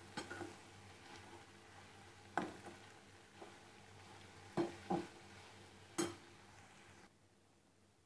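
Steel spoon stirring fenugreek leaves with onion and potato in a steel pan, clinking sharply against the pan about five times, over a faint sizzle that fades out about seven seconds in.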